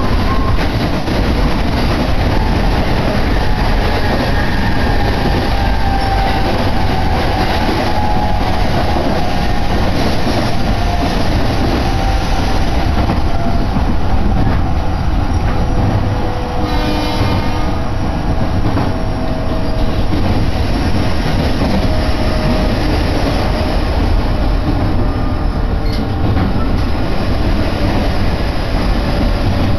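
Running noise of a Joban Line electric train heard from inside the carriage: a loud, steady rumble with faint whining tones over it. A brief pitched sound comes just past halfway.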